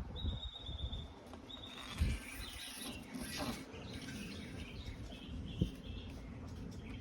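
Faint bird chirping: short high whistled notes, repeated in short runs, over a low background rumble, with a couple of soft knocks.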